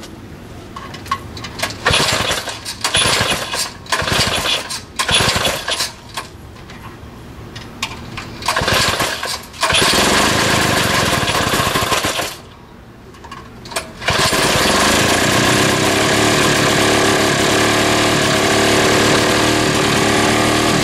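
3 hp Tecumseh small gas engine being pull-started on choke: it sputters and fires in short uneven bursts, runs for a couple of seconds, falters, then catches about two-thirds of the way in and runs steadily. It is a hard starter, prone to a wet spark plug from sitting on its side.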